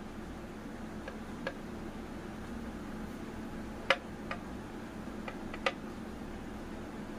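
Whiteboard marker tip tapping and clicking against the board as letters are written: about seven short, irregular ticks, the loudest about four seconds in, over a steady low hum.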